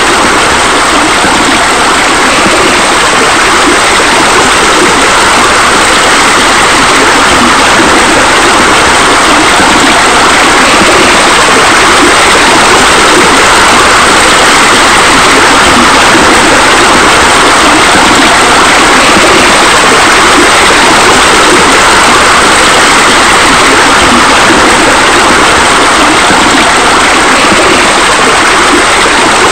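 Steady rush of falling water, as from a spa spillway pouring into a pool, unchanging throughout.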